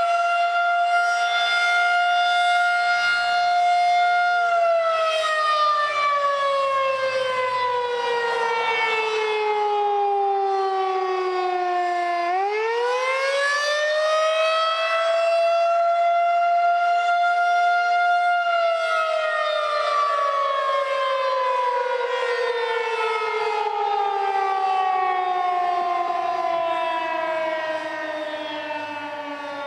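Outdoor tornado warning siren sounding during a drill test: a loud tone with strong overtones holds steady, slowly sinks in pitch, sweeps quickly back up about twelve seconds in, holds, then sinks slowly again.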